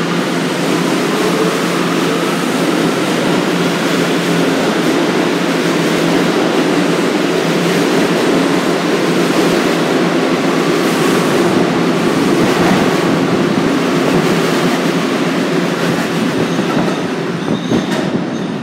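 Kawasaki-built R211A subway train pulling out of an underground station, its wheels running steadily on the rails with a clickety-clack from the track. The loudness eases slightly near the end as the last car leaves the platform.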